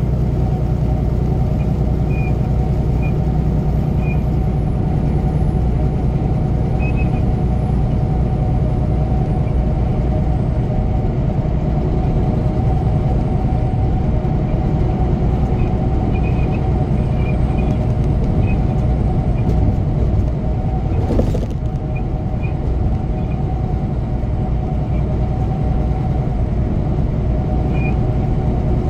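Inside a semi truck's cab at highway cruise: a steady low engine drone and road noise, with occasional faint ticks and a short burst of noise about two-thirds of the way through.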